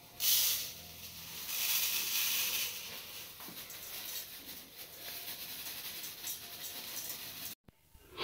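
Plastic bag rustling as sela (parboiled) rice is shaken out of it into a steel bowl: two short bursts of hiss in the first three seconds, then fainter rustling.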